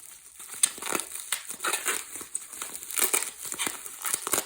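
Packaging being crinkled and crumpled by hand as a boxed toy horse is unwrapped: a run of irregular crackles, louder around the third second.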